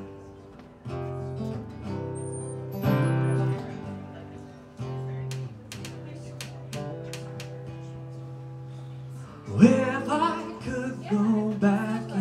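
A small live band playing a slow song: acoustic guitar chords strummed and left to ring. About ten seconds in, a man starts singing over them.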